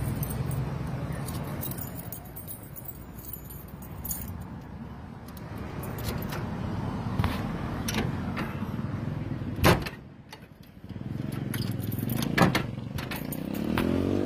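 Keys jangling and clicking in the lock of a sheet-metal door as it is unlocked, with a few sharp metallic clicks, over a low steady rumble.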